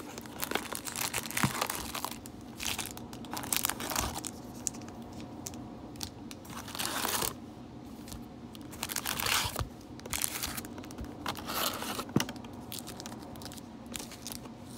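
Foil-wrapped trading card packs crinkling and rustling in irregular bursts as they are pulled out of a cardboard box and stacked, with one sharp tap about twelve seconds in.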